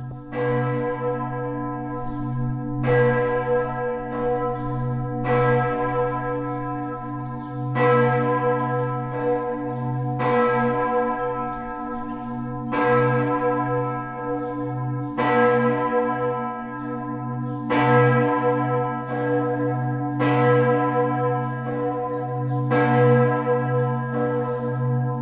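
A single church bell tolling slowly, struck about every two and a half seconds, each stroke ringing on and dying away over a deep steady hum.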